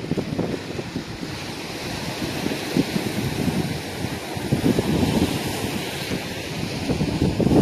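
Gusty wind buffeting the microphone, with waves washing against the shore.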